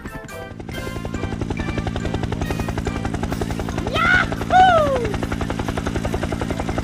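A steady, fast-pulsing mechanical drone with background music over it. About four seconds in, a high cry rises sharply, and a second one falls away.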